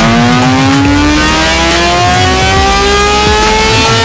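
2003 Kawasaki Ninja 636's inline-four engine, breathing through a full Hindle exhaust, revving under full throttle in a dyno pull, its pitch climbing steadily.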